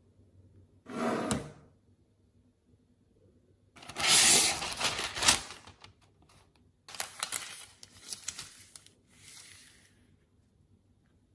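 Silicone-coated parchment paper pulled from its roll and torn off, with loud rustling for about two seconds, then crinkling in shorter bursts as the sheet is handled and laid flat. A brief rustle comes about a second in.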